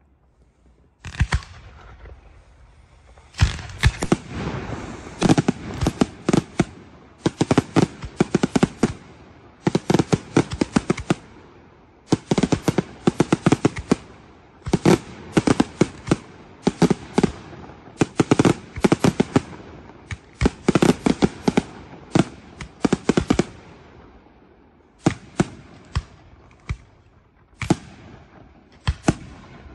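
Maxima Fireworks night display: fireworks exploding in rapid volleys of sharp bangs, several reports in each cluster, a cluster every second or two, starting about a second in and thinning near the end.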